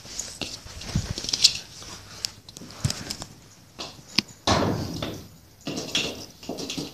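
Scattered taps, scuffs and scrapes of a puppy scrambling after a ball on a concrete floor, with a louder rustling stretch about four and a half seconds in.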